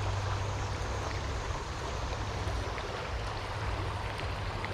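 River water running steadily, an even rushing sound, with a constant low hum underneath.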